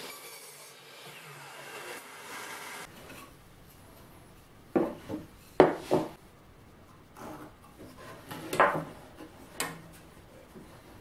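A DeWalt miter saw's motor whirs steadily and cuts off about three seconds in. Then come sharp wooden knocks and scrapes as wood pieces and a wooden marking gauge are set down and moved on a workbench, in two clusters about five and nine seconds in.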